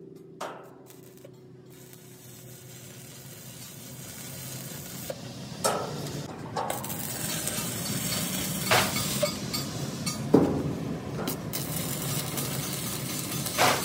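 Metal fabrication work: a steady hiss that grows louder over the first several seconds, broken by a few sharp knocks on metal.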